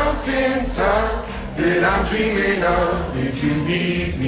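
Pop song playing: several voices singing together over sparse backing.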